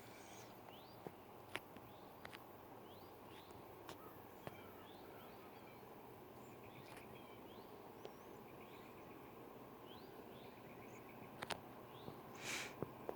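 Quiet outdoor ambience: small birds chirping in short rising notes over a faint steady background noise, with a few light clicks.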